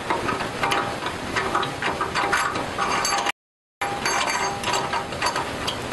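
Thumb screw being turned by hand into a meat grinder to clamp its stainless steel head: a run of small metallic clicks and scrapes, broken by half a second of dead silence a little past halfway.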